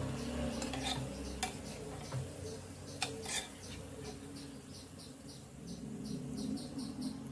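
Metal slotted skimmer clinking and scraping against a kadai as crisp fried onions are lifted out of hot oil and tipped onto a plate, with a few sharp clinks in the first half over the faint sizzle of the oil.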